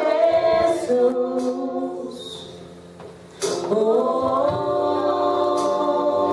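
A congregation singing a worship song, with male and female voices together: a sung phrase, a short pause about two and a half seconds in, then a long held note that slides up into place.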